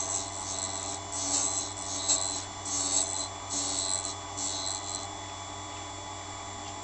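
Cutter grinder running with a steady motor hum while a cutter bit is touched to the grinding wheel in about seven short rasping grinding strokes. The strokes stop about five seconds in, leaving only the motor hum.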